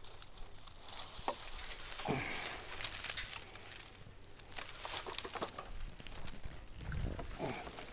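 Electric poultry netting being pulled out of a tangled pile and gathered up: a quiet rustle of the mesh with many scattered sharp clicks and ticks.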